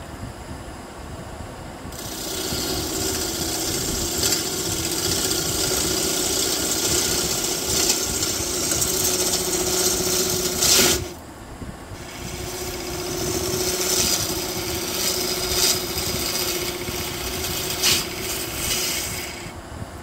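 Wood lathe turning a white pine bowl while a gouge cuts its outside: a steady hissing shear of wood shavings in two long cuts, the first of about eight seconds and the second of about seven, with a short break between and the lathe's hum underneath.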